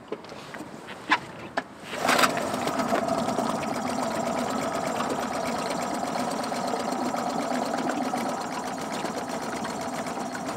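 Small Honda four-stroke outboard motor catching on the first pull of its cord about two seconds in, after a few light knocks. It then runs steadily at idle. This is the first start after the engine was submerged and hydrolocked, then had its oil changed and its carburettor cleaned.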